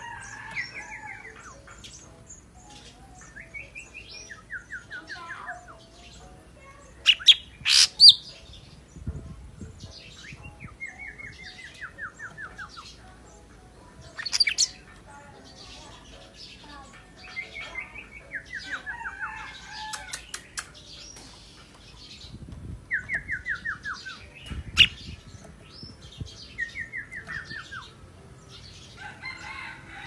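Caged leafbird (cucak ranting) singing: repeated short trills of rapid notes that slide downward, broken by a few loud sharp sounds, the loudest about seven to eight seconds in.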